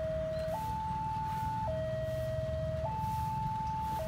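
Railway level-crossing warning alarm sounding, a steady electronic two-tone signal alternating between a lower and a higher note, each held a little over a second. A low rumble runs underneath.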